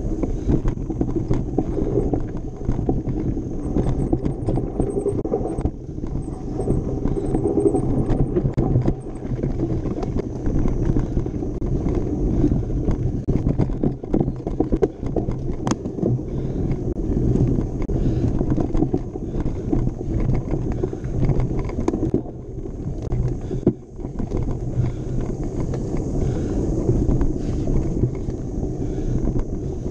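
Mountain bike ridden hard over rough dirt and rock trail: continuous rattling and knocking of the bike over the bumps, with tyre noise on the ground.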